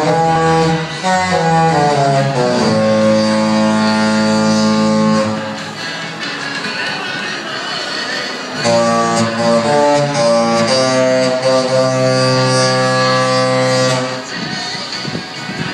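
Disney cruise ship's musical horn playing a tune: two phrases of stepped, held notes, each ending on a long note, with a pause of a few seconds between them.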